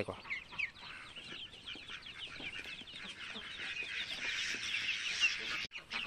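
A brood of ducklings peeping together: many short, falling peeps overlapping into a dense chorus that grows fuller in the second half and breaks off for an instant near the end.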